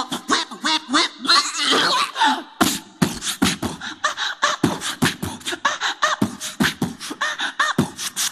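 Human beatboxing: a fast, even run of mouth-made kick, click and hissy snare sounds with short pitched vocal warbles woven between them, breaking off briefly just before three seconds in.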